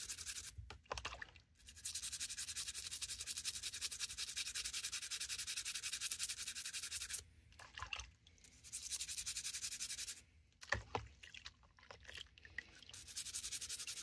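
Toothbrush scrubbing the back springs of a Swiss Army knife in dish-soap water: a quick, rhythmic bristly hiss, in spells with a couple of short pauses and a few small clicks of the knife about ten seconds in.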